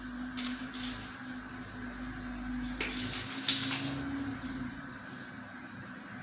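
Muesli being sprinkled over a dessert: a few short rustles and light clicks. Under them runs a steady low hum that stops about four seconds in.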